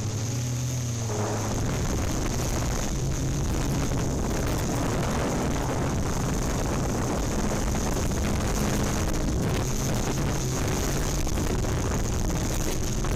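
Yuneec Typhoon Q500+ quadcopter drone's motors and propellers running, a steady whir as it flies low and comes down toward the pavement to land.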